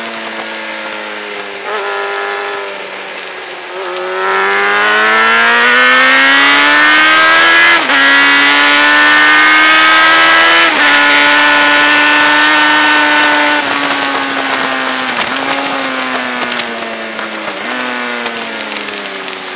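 Sport motorcycle engine at racing speed. The revs fall off, then climb hard under full throttle from about four seconds in, with quick upshifts near eight and eleven seconds. They hold steady, then ease off with short downshift blips near the end. Wind rushes over the bike throughout.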